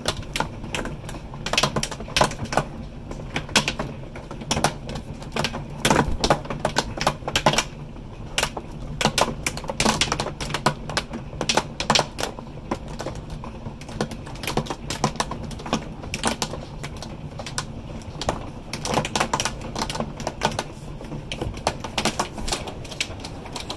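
Hailstones pelting the house and its window: a dense, irregular clatter of sharp clicks and knocks, thinning slightly near the end.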